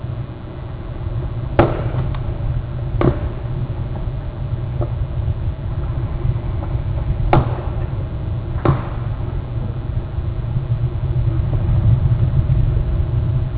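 Steady low rumble of wind on an outdoor microphone, with four sharp clicks or knocks, two near the start and two about halfway through.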